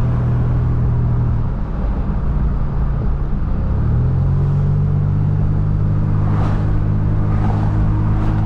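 Toyota 4Runner engine and road noise while driving, a steady drone that drops off about a second and a half in and picks back up about four seconds in.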